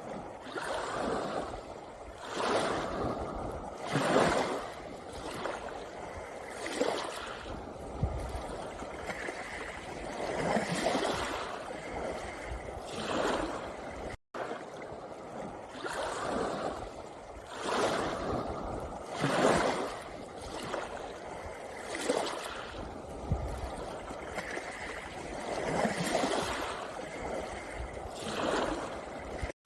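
Sea waves breaking and washing over a pebble beach, surging and easing every few seconds. There is a split-second dropout about halfway through.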